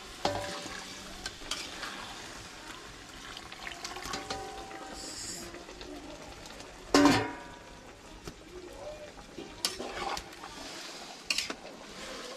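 Masala chicken with a little water added, sizzling and bubbling in a steel pot over a wood fire, stirred with scraping and clinking against the pot. There is one loud ringing metal clank about seven seconds in.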